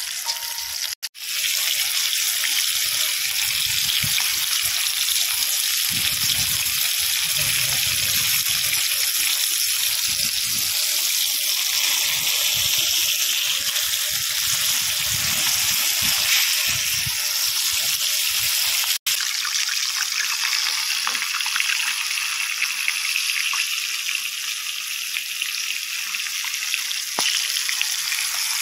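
Flour-coated Indian mackerel deep-frying in a pan of hot oil, a steady high sizzle. From about a second in until an abrupt cut at about 19 s, the flow of a river with an uneven low rumble is mixed in; after the cut the oil sizzles alone.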